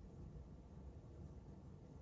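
Near silence: faint room tone with a low hum, in a pause between spoken prayers.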